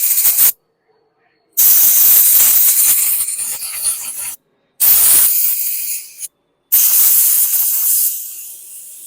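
Pressurised spray hissing in long bursts, blasting through the varnished jets of a small-engine carburetor to clear them. A short burst ends just after the start, then three long bursts follow with brief silent gaps; the first and last fade as they go on.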